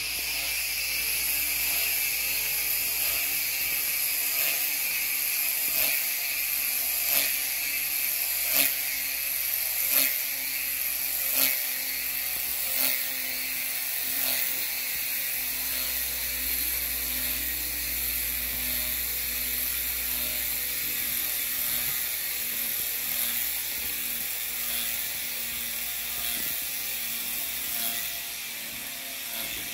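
Tiny 612 coreless motor and homemade gearbox of a supercapacitor-powered micro foam model airplane spinning its 45 mm prop: a steady high whine with a ratcheting gear buzz. Through the middle comes a regular tick about every second and a half, and the whine fades a little near the end.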